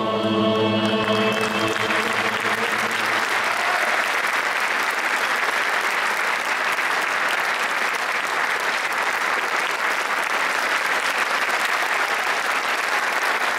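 Audience applauding steadily. Under the first two or three seconds the choir and ensemble's final held chord dies away.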